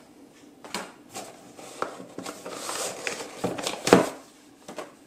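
Handling noise from a Louis Vuitton Neverfull Pochette as it is opened out and turned over in the hands: irregular rustles and soft knocks, the loudest about four seconds in.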